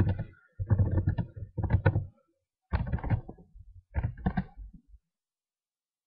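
Computer keyboard typing: bunches of keystrokes knocking in quick runs with short gaps between them, then stopping about five seconds in.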